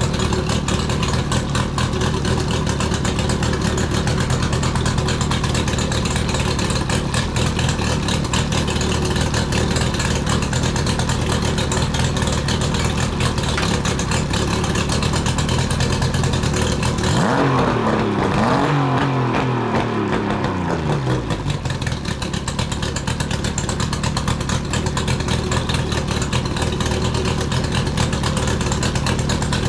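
Mercury 50 hp outboard motor running steadily, its pitch briefly rising and falling away again about seventeen seconds in.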